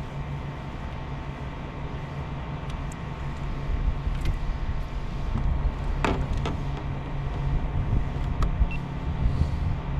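A boat's motor running steadily, a low hum over rumble. A few sharp clicks about six seconds in.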